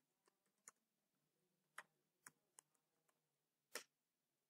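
Faint computer keyboard keystrokes: a handful of separate, irregular clicks, the loudest one near the end.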